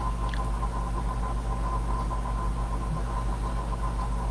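Steady low hum with a faint high whine and hiss: the constant background noise of the room and the recording.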